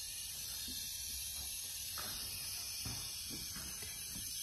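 Compressed air hissing steadily out of the crankcase drain/fill opening of a Honda single-cylinder kart engine under a leak-down test, with a few faint ticks. The hiss is air leaking past the piston rings into the crankcase, normal for these engines because their ring gaps are so big.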